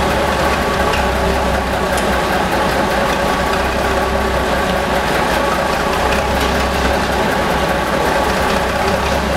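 Diesel locomotive engine idling steadily: a constant low rumble with a steady hum over it.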